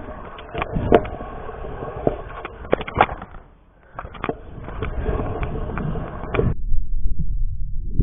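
Stunt scooter's wheels rolling over concrete, with several sharp clacks of the deck and wheels knocking on the ground. It goes briefly quiet about three and a half seconds in, then rolls again and turns into a muffled low rumble near the end.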